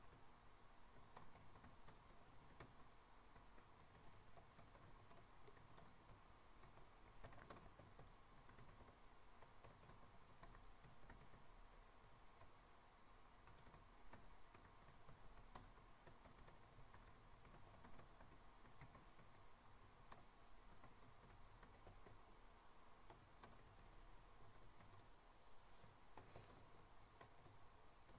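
Near silence: faint, irregular computer keyboard clicks over a steady faint hum.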